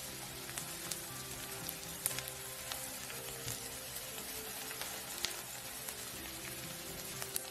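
Chopped onion and garlic sizzling steadily in hot oil in a pan while being sautéed, with occasional sharp crackles and clicks as a spatula stirs them.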